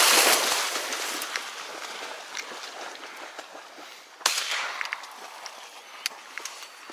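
A retrieving dog leaps from an inflatable boat into shallow marsh water with a loud splash, then splashes through the water and reeds. About four seconds in there is a single sharp bang.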